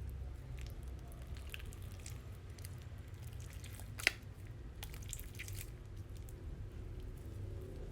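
Slime being squished and worked by hand, giving small sticky clicks and wet pops, with one sharper pop about four seconds in.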